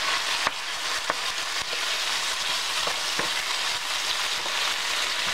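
Beef strips, onions and bell peppers sizzling steadily in a stainless steel frying pan as they are stirred with a wooden spatula, with a few light knocks of the spatula against the pan.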